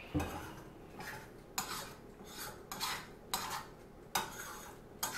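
A spoon scraping and stirring scrambled eggs in a frying pan: a series of short scrapes, about one every three-quarters of a second.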